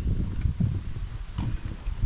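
Wind buffeting the microphone: an irregular, gusty low rumble, with one brief click about one and a half seconds in.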